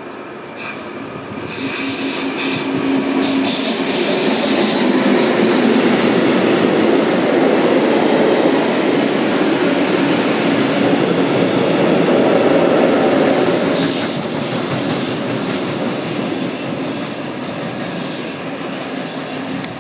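Freight train of covered wagons passing at speed, the wagons running over the rails close by. It grows loud within the first couple of seconds, stays loud through the middle and eases off near the end as the train moves away.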